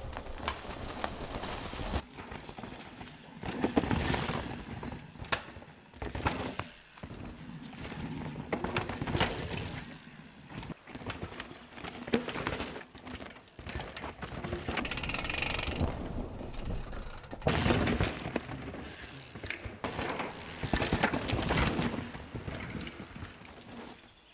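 Mountain bike ridden hard down a dry dirt trail: tyres skidding and crunching through loose dirt, with the frame, chain and suspension rattling and knocking over roots and rocks. The sound comes in surges of a few seconds as the bike passes, with sharp knocks throughout.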